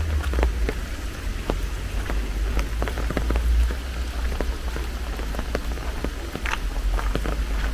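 Steady rain falling, with irregular single drops ticking sharply close by over a low, steady rumble.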